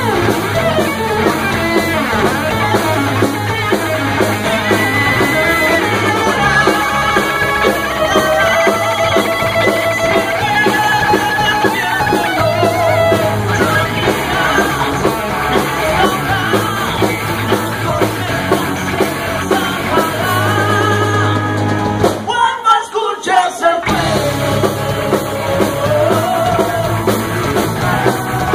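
Live rock band: a lead singer over electric guitar, bass, keyboards and drum kit, heard through the PA. The band drops out for a moment about three-quarters of the way through, then comes back in.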